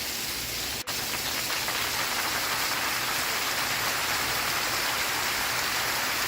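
Steady rain falling, a dense even hiss of drops, with a momentary dropout a little under a second in.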